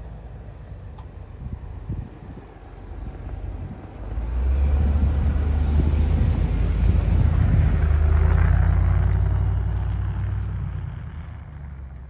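A 4x4 pickup truck carrying a camper drives along a snowy road and passes close by, its engine and tyre rumble. The rumble swells from about a third of the way in, is loudest just past the middle, then fades.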